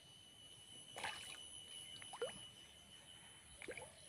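Three faint, small splashes and drips of water at the surface of a fish pond, about a second apart.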